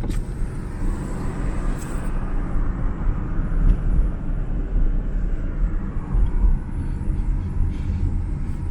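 Road and engine noise heard inside a moving car: a steady low rumble of tyres and engine, with a hiss that swells and fades over the first few seconds.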